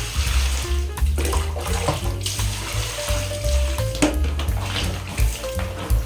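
Background music with a heavy, stepping bass line, over a steady rushing noise like running water.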